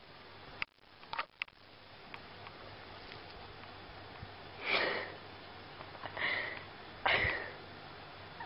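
A domestic cat gives three short, breathy huffs with its mouth open, about a second apart, after a few light knocks.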